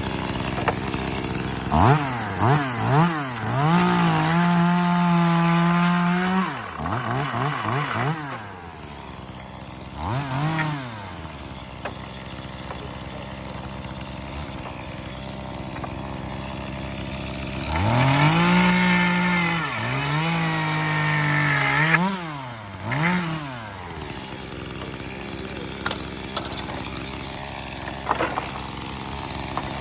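Echo CS-2511T two-stroke top-handle chainsaw idling and revving up repeatedly. Its pitch climbs and is held high for a few seconds from about two seconds in, there is a short rev around ten seconds, and a longer run of revs comes from about eighteen to twenty-four seconds.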